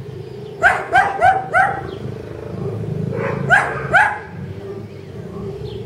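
A dog barking: four quick barks about a second in, then two more a couple of seconds later.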